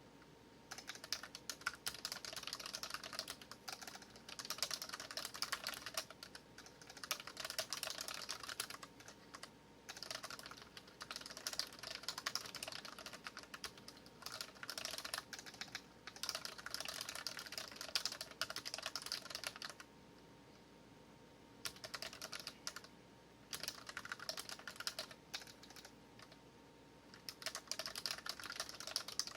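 Fast typing on a Dareu EK820 mechanical keyboard with red linear switches: dense runs of key clacks with short breaks. The typing stops for about two seconds two-thirds of the way through, then resumes.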